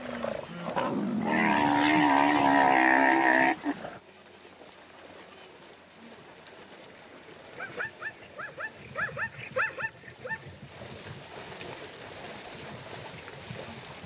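Zebra calling: a loud, pitched, wavering braying call lasting about two and a half seconds, starting about a second in and cutting off suddenly. Later, a quick run of short, high, rising chirps for about three seconds.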